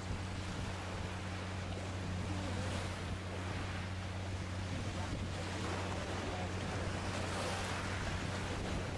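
Wind rushing on the microphone over open water, with a steady low drone of ships' engines beneath it. The rush swells about seven seconds in.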